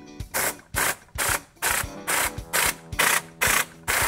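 Tornador Classic air-pulse cleaning gun firing short bursts of air and cleaning mist, about two a second, its air turned down and chemical dialled back.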